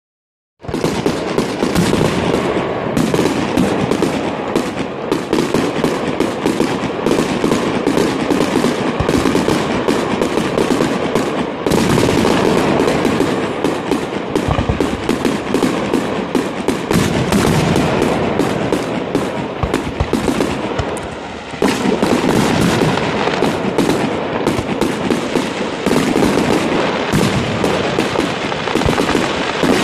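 Fireworks finale barrage: a rapid, unbroken stream of bangs and crackling bursts overlapping one another, easing slightly about 21 seconds in before coming back at full strength.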